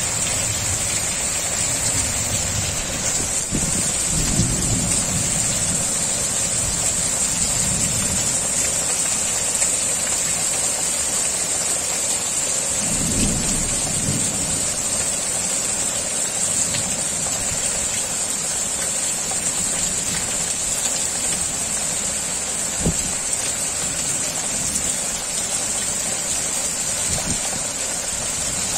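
Heavy rain falling steadily, a dense even hiss, with low rumbles swelling about 4 and 13 seconds in.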